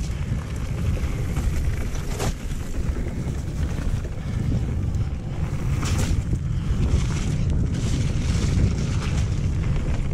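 Wind buffeting the microphone and steady tyre rumble as a mountain bike rolls fast down a wet gravel track, with a couple of sharp knocks from the bike over rough ground, about two seconds in and about six seconds in.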